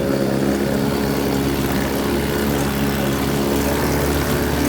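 1978 GameFisher 15 hp two-stroke outboard motor running steadily in forward gear below full throttle, its pitch holding nearly level.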